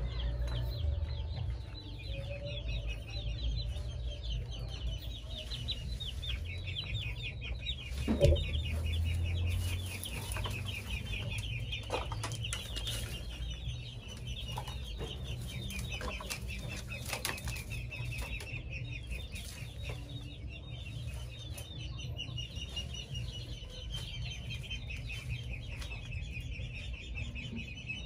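Farmyard pen sounds: a steady, rapid, high chirping runs throughout, while a bundle of leafy greens rustles as it is carried and dropped into a cage. A single loud knock comes about eight seconds in.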